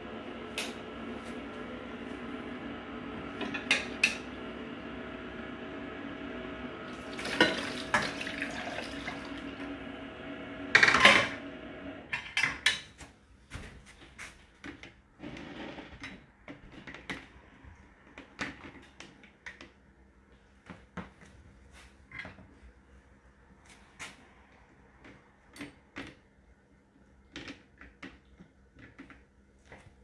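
Cutlery clinking and the wire racks of a Whirlpool WFO3P33DLXUK dishwasher rattling as they are handled, with the loudest clatters in the first twelve seconds. A steady hum under them stops about twelve seconds in, leaving scattered light clicks and clinks.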